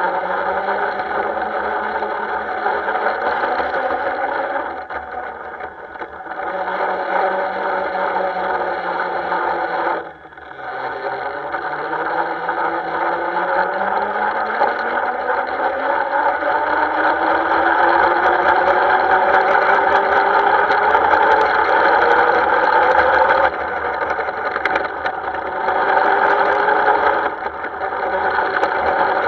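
Ride-on miniature Class 08 shunter locomotive running as it pulls away, its drive note rising steadily in pitch as it gathers speed. About ten seconds in the note briefly drops before climbing again.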